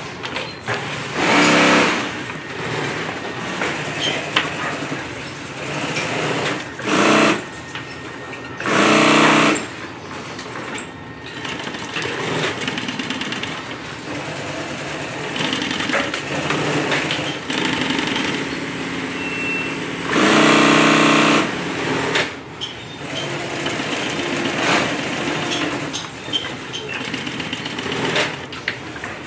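Industrial sewing machine stitching nylon webbing onto a fabric bag in short runs of rapid stitching, stopping and starting; the loudest runs come about a second in, around seven and nine seconds, and a longer one around twenty seconds.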